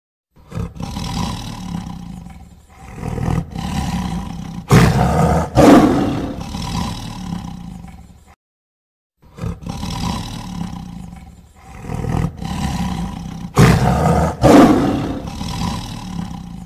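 Tiger roaring and growling in a run of several calls, the two loudest close together late in the run. After a brief silence the same run of roars is heard again.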